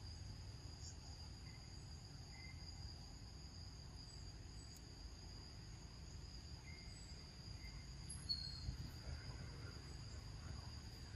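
Faint, steady high-pitched insect chorus, a continuous drone of two even tones, over a low rumble, with a few short chirps scattered through it.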